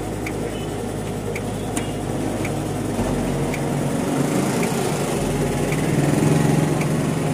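A motor running steadily with a low hum, getting a little louder about halfway through. Faint high ticks come about once a second.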